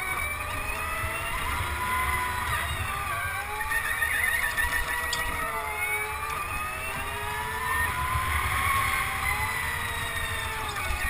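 Go-kart motor running at speed, its pitch rising and falling as the kart speeds up and slows through the corners, with low rumbling wind noise on the helmet-mounted microphone.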